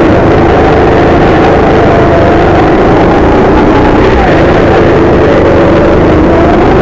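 Go-kart engine running hard, loud and close from the driver's seat, its pitch dropping and climbing again as the kart slows into corners and accelerates out of them.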